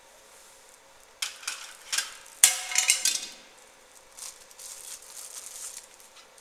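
CO2 laser marking machine marking a plastic part: irregular rattling, hissy bursts start about a second in and are loudest around two and a half seconds, then turn to softer crackling that stops shortly before the end.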